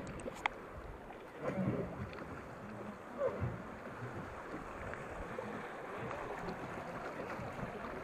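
Rapids rushing and splashing around a river boat running through white water, a steady wash of water noise. A sharp click comes about half a second in, and a few louder knocks come in the first few seconds.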